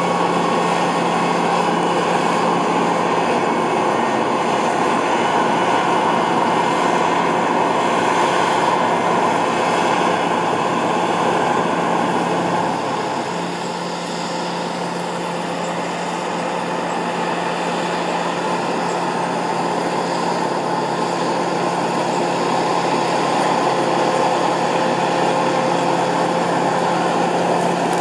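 Massey Ferguson 7360 PL Beta Paralevel combine harvester running steadily while harvesting, a continuous engine and threshing drone with a steady hum. It drops a little in level about 13 seconds in and builds back up.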